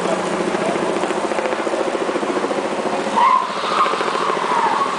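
The 2013 Ford Focus ST's turbocharged four-cylinder engine running with a rapid pulsing note as the car approaches and passes close by. A higher wavering tone joins about three seconds in.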